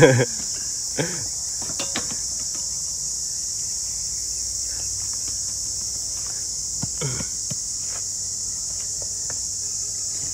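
Steady high-pitched drone of insects calling, with a few faint knocks and clatters.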